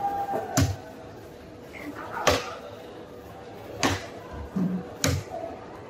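Large knife chopping giant trevally on a thick wooden chopping block: four sharp chops a second or more apart, the second the loudest, over background chatter.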